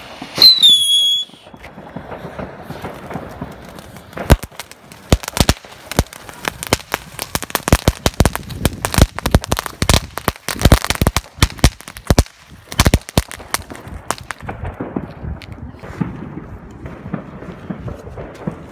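Small ground fountain fireworks spraying sparks with a hiss and a dense run of sharp crackling pops, which thins out after about thirteen seconds. A short high whistle falls and levels off right at the start.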